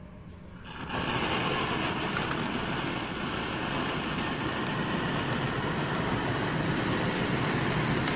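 The sparkler fountain at the centre of a lotus-flower birthday candle catches about a second in, then burns with a steady, even hiss of sparks.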